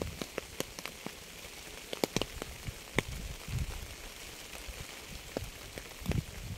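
Rain falling steadily, with individual drops landing as sharp taps on a hard surface and a few low rumbles.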